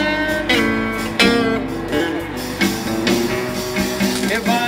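Live guitar music, strummed and plucked notes changing about once a second.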